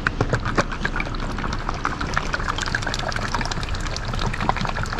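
Transmission fluid sloshing inside a plastic bottle as it is shaken by hand: a rapid, irregular run of splashes.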